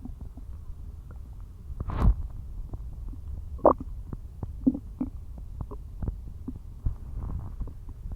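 An empty human stomach growling: a steady low rumble broken by gurgles. The loudest gurgle comes about two seconds in, another shorter one just before four seconds, and a longer rumbling gurgle near the end.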